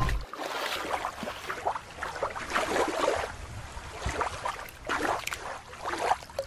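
Water sloshing and trickling, with small irregular splashes, as a small plastic hand net is swept through shallow water. It opens with the tail of a low whoosh sound effect.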